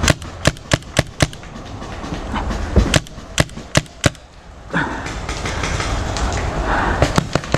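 Paintball markers firing in quick strings of sharp shots: about five shots in the first second and a quarter, four more around three to four seconds in, and three near the end.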